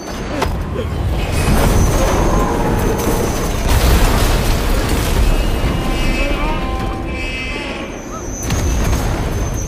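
Film sound effects of a train derailing: a loud, continuous low rumble with booming crashes of carriages, the heaviest at the start and again near the end, under dramatic music.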